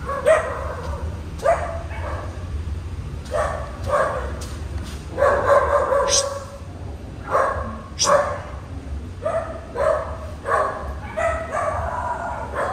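A dog barking over and over, about once a second, with a few longer, drawn-out barks among the short ones.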